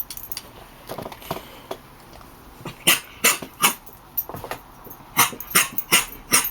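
Dog giving short, sharp barks in two quick runs: about three near the middle and four or five toward the end.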